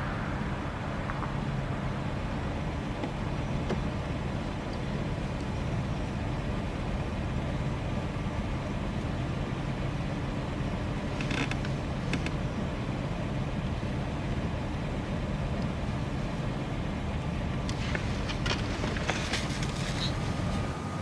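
Steady low rumble of a car heard from inside its cabin, with a few brief clicks and rattles about eleven seconds in and again near the end.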